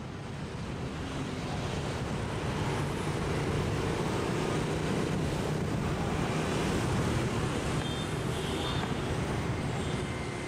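Steady rumble of road traffic, building over the first few seconds and easing slightly near the end.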